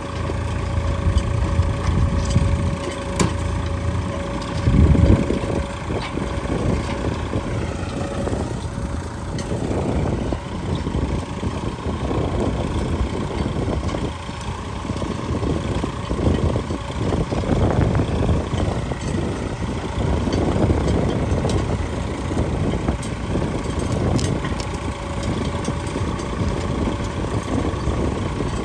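Swaraj 963 FE tractor's three-cylinder diesel engine running steadily under load as it pulls a bed planter through the soil.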